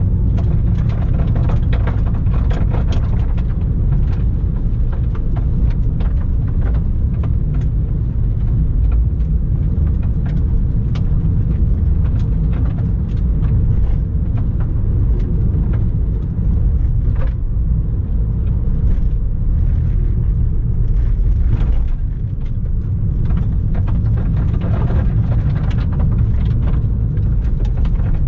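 Car driving along a gravel rally stage road: a steady low rumble of tyre and road noise, with frequent short sharp ticks and knocks.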